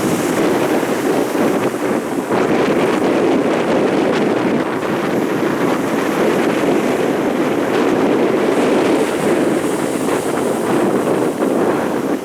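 Strong wind buffeting the microphone in a steady, loud rush, with storm surf washing beneath it.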